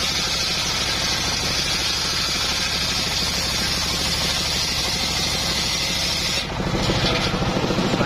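Homemade engine-driven circular saw bench ripping a gmelina (white teak) plank: a steady high hiss of the blade in the wood over the running engine. About six and a half seconds in, the cut ends and the hiss drops away, leaving the engine and the free-spinning blade running with an even pulsing beat.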